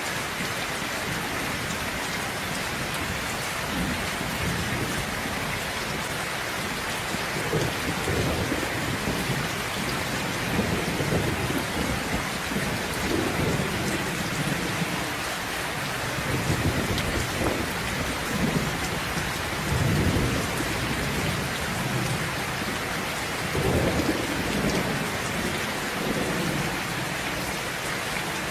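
Steady heavy rain with thunder rumbling low underneath, swelling and fading several times.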